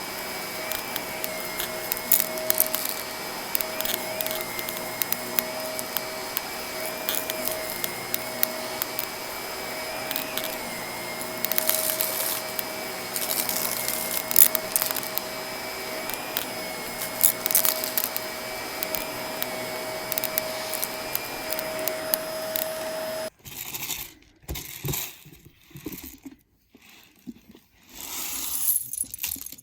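Vacuum cleaner running steadily with a high whine, small bits of debris crackling and clicking as they are sucked up. The motor cuts off suddenly about three quarters of the way through, leaving scattered clicks and knocks.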